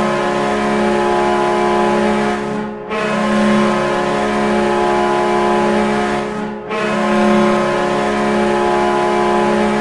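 Kahlenberg T3-373 air horn sounding as a hockey goal horn: loud, deep, steady blasts, broken by two brief breaks about three and six and a half seconds in, the last blast running on.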